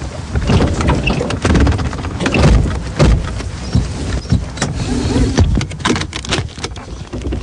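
Car interior sound: the car running, with irregular knocks, thumps and rattles through the cabin.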